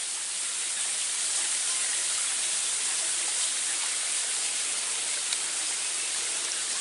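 Steady rushing of falling water, an even hiss that does not change.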